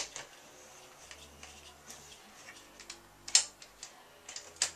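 Scattered sharp clicks and knocks of metal parts as a road bike's rear wheel is fitted into the clamp of a JetBlack Z1 fluid bike trainer. The loudest comes about three seconds in, another near the end.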